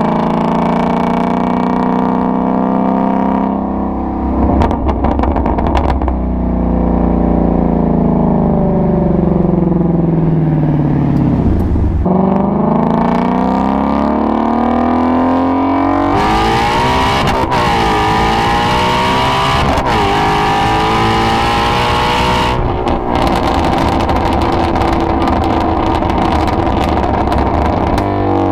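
Ford Mustang Shelby GT350's 5.2-litre flat-plane-crank V8 and exhaust: the engine note falls as the car slows, then climbs hard under wide-open throttle, dipping twice at upshifts before settling to a steady cruise.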